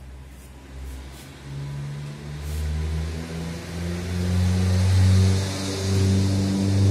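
A motor vehicle engine running with a steady low hum that grows louder over several seconds.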